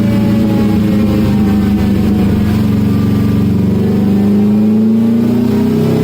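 Freshly rebuilt, fully forged car engine running. Its pitch sags slowly, then climbs again from about four seconds in as the revs rise. The owner says the tune is still too rich and needs fuel taken out.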